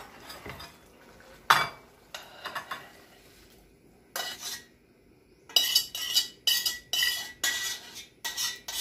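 A utensil knocking and scraping against a stainless steel pan as stewed beef is scooped out into a bowl: one sharp knock about a second and a half in, a few light clinks, then repeated ringing metal scrapes, about two a second, in the second half.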